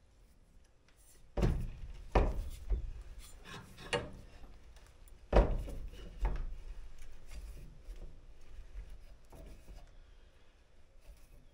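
Bench vise being worked on a metal pipe: the sliding handle bar knocks against its ends several times, loudest about a second and a half in and again near the middle, with rubbing between.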